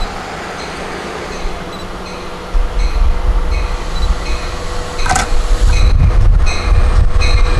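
Long Island Rail Road DM30AC diesel locomotive hauling bi-level C3 coaches on arrival, its low rumble growing louder about two and a half seconds in and again after about five seconds. A high ding repeats about twice a second over the rumble.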